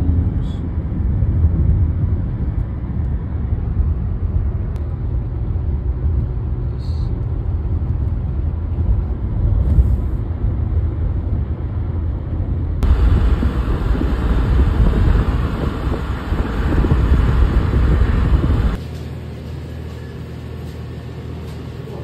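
Steady road and engine rumble inside a moving car's cabin. About thirteen seconds in it turns brighter and hissier, and near the end it gives way to much quieter indoor room tone.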